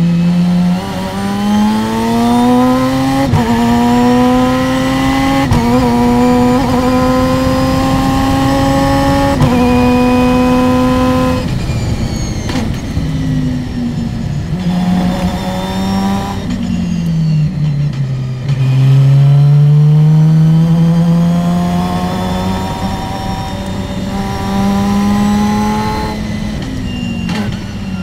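Open-wheel race car's engine heard onboard, pulling hard through the gears. The pitch climbs and steps at upshifts, then drops away under braking with quick throttle blips on the downshifts before climbing again out of the corner.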